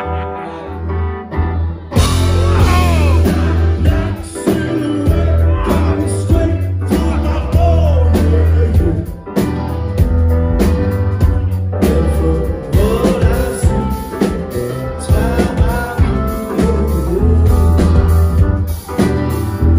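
Live rock band playing with a lead vocal: electric guitar, keyboards and drums. The backing is sparse for the first couple of seconds, then the full band comes in with a heavy bass line.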